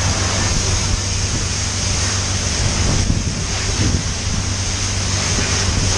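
High-pressure wash wand at a self-serve car wash spraying water onto a motorcycle: a steady, loud hiss of spray over an even low hum.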